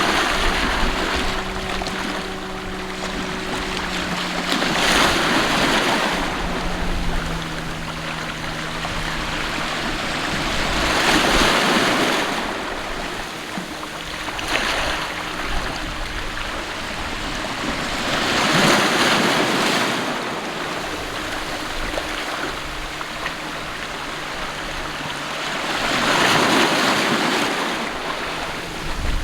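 Sea waves washing in, the surf swelling to a rush about every seven seconds, with a faint low steady drone underneath that shifts in pitch about seven seconds in.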